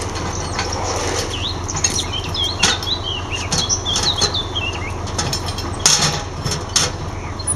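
Metal clinks and knocks of hose couplings and caps being worked at an above-ground fire hydrant, the sharpest knocks near the end. A small bird chirps a quick run of high notes in the first half, over a steady low hum.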